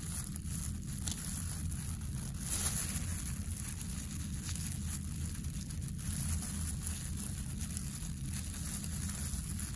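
Thin plastic gloves crinkling and small scissor snips as fat and muscle are trimmed from a cow eye, over a steady low hum.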